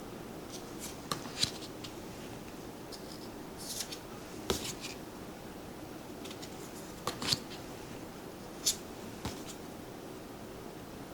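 Tarot cards being handled: a handful of scattered light clicks and rustles of card stock, a few seconds apart.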